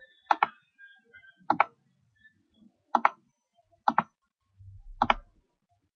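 Computer mouse clicking: five separate clicks, about one to one and a half seconds apart.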